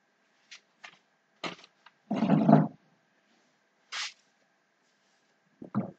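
A few sparse clicks from a computer mouse and keyboard. About two seconds in there is one loud, breathy burst of noise lasting about half a second, and a faint steady whine sits underneath.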